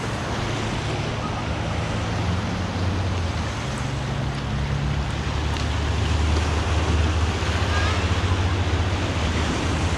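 Steady wash of sea surf with wind on the microphone, and a low rumble underneath that grows louder in the second half.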